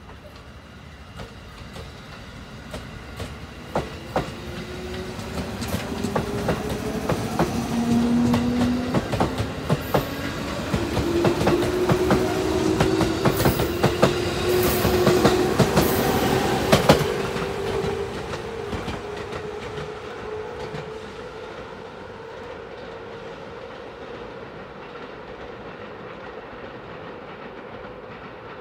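JR 213 series electric commuter train pulling out and accelerating away: its motor whine rises slowly in pitch over the wheels' clickety-clack on the rail joints. It is loudest around the middle, then fades to a low rumble as the train leaves.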